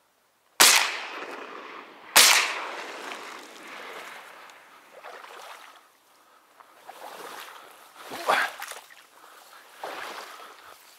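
Two shotgun shots about a second and a half apart, each ringing out with a long echoing tail, fired at ducks flying over at dusk. Softer knocks and rustles follow.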